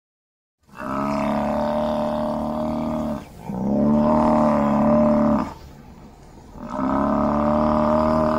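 African buffalo (Cape buffalo) calling: three long, low calls of about two to three seconds each, separated by short pauses, the first beginning a little under a second in.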